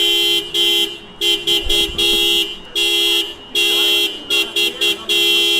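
A Honda car's horn honking over and over in an uneven rhythm. Long blasts of about half a second alternate with quick runs of two or three short toots, with no break longer than a fraction of a second.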